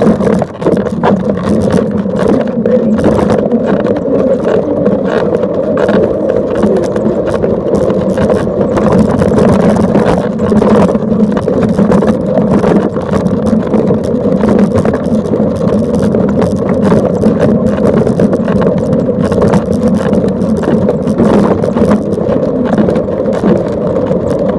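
A Land Rover driving, heard from inside the cab: a loud, steady engine drone with road noise.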